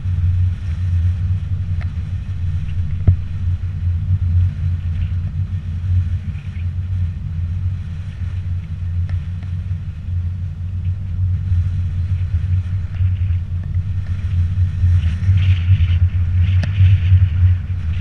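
Steady low rumble of wind and road noise on a GoPro moving along a road, with a few faint clicks and a hiss that grows a little in the last few seconds.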